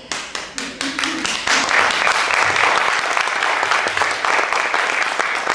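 An audience applauding: a few scattered claps that swell into full, steady applause about a second and a half in.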